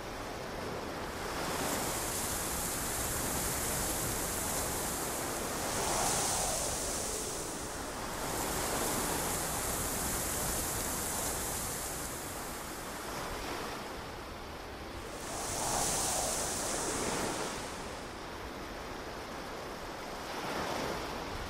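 Ocean surf washing in and out, swelling every few seconds, with a layer of hiss that switches on and off abruptly.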